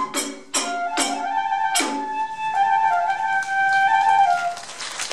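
Iwami kagura ensemble closing a piece: a few sharp drum strokes in the first two seconds, then a Japanese transverse bamboo flute (fue) holding and stepping between its last long notes, which stop shortly before the end.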